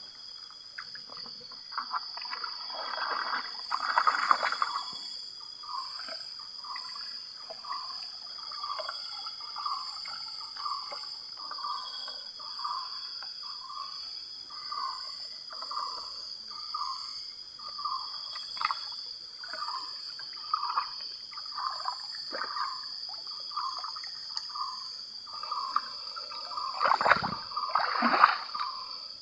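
Water sloshing in a steady rhythm, about one and a half sloshes a second, over a steady high drone of insects. A few louder knocks come near the end.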